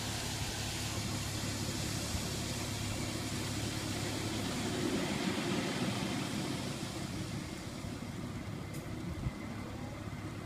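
International 4900 truck's diesel engine running steadily, a low rumble that swells slightly about halfway through.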